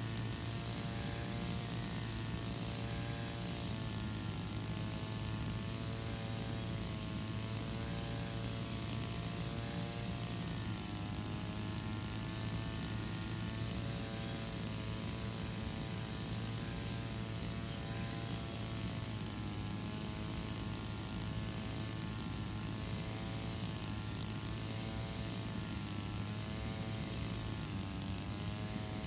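Brush cutter's small engine running steadily while cutting grass, its pitch dipping and recovering a few times as the load on the cutter changes.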